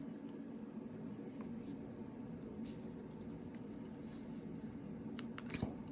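Faint scraping handling noise of a flashlight head being twisted on its threads, with a few light clicks near the end.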